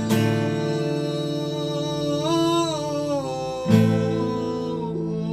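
Music: acoustic guitar chords strummed and left ringing, struck again a little past halfway, under a singer holding one long note that wavers in pitch in the middle.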